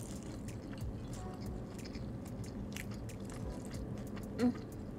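Chewing and biting of spicy fried chicken, many small wet clicks and crunches of mouth noise. A short hum-like vocal sound comes about four and a half seconds in.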